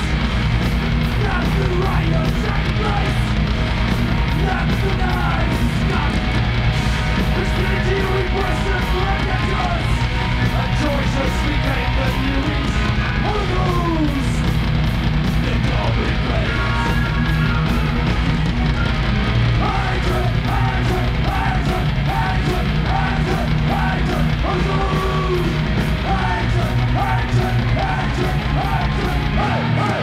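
Live heavy metal band playing at full volume: distorted guitar, bass and fast drums, with shouted, yelled vocals over them.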